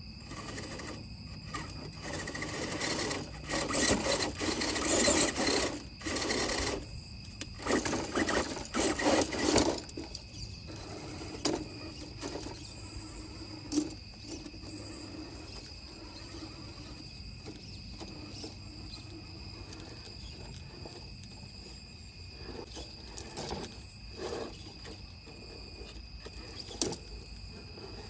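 1:10 scale RC rock crawler's motor and tyres scrabbling over stone steps in loud bursts through the first ten seconds or so, then quieter with scattered clicks as it creeps along. Crickets trill steadily underneath.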